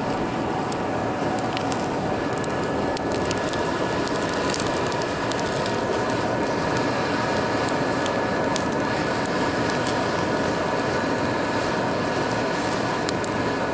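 Wood fire crackling and popping in the firepot of a homemade brake-rotor forge, with sharp pops scattered throughout, over a steady rushing noise with a faint whine beneath it.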